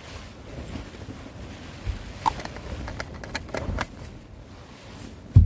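Low wind rumble with scattered light clicks and knocks from handling cooking gear inside a tent, and one heavy thump near the end.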